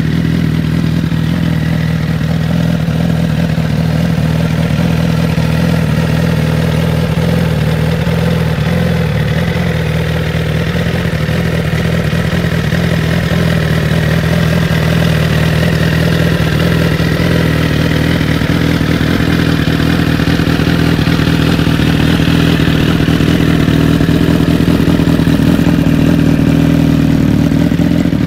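Suzuki GSX-R1000's inline four-cylinder engine idling steadily through a Pro Race aftermarket exhaust, its even low note getting slightly fuller about two-thirds of the way in.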